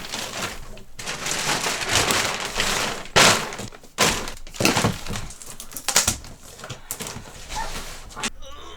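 Packaging being handled and pulled apart: continuous rustling and crackling with several sharp cracks and knocks, the loudest about three seconds in.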